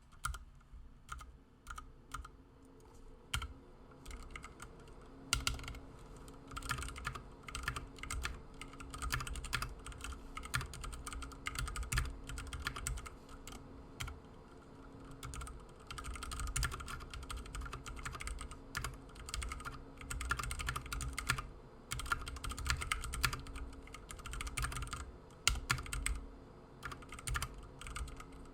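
Typing on a Ducky Mini Mecha 2 mechanical keyboard with Cherry MX Red switches. A few scattered keystrokes come first, then fast continuous typing from about five seconds in, with a short lull around the middle.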